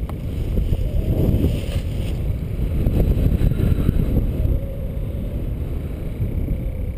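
Wind rushing over the camera's microphone during paraglider flight, a steady low buffeting rumble that flutters throughout.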